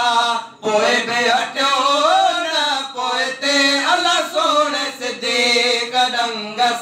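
A man singing a Sindhi naat, a devotional song in praise of the Prophet, in a chanting style with long, wavering held notes. No instruments are heard. There is a short break for breath about half a second in.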